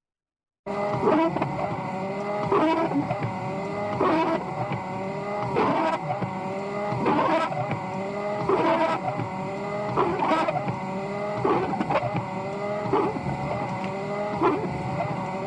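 Windshield wipers on slow speed, the blades scraping and squeaking across an icy windshield, one sweep about every one and a half seconds over a steady car hum. They start after a brief moment of silence.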